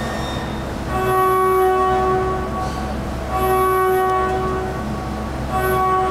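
5-axis CNC milling machine's spindle and cutter roughing under flood coolant: a pitched ringing tone with overtones that swells three times, about a second in, around three and a half seconds and near the end, as the cutter loads up in the cut, each swell with a brief hiss, over a steady machine hum.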